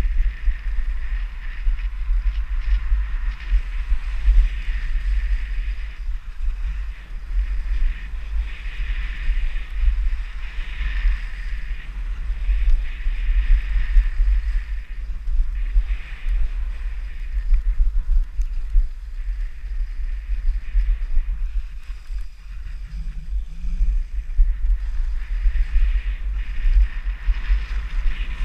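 Wind buffeting a GoPro's microphone at skiing speed, a steady low rumble, with the hiss and scrape of skis on packed groomed snow swelling and fading every few seconds through the turns.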